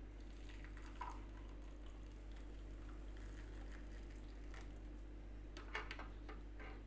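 Faint pattering of a boiled garlic-and-ginger brew being strained, with a few light clicks of kitchenware over a low steady hum.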